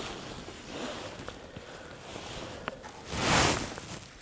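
Quiet rustling and handling of clothing and recording gear close to the microphones, with a few faint clicks and one louder swish about three seconds in.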